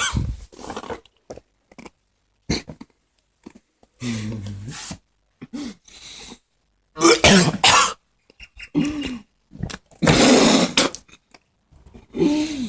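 A person coughing and clearing their throat in several separate fits, the loudest and harshest about ten seconds in.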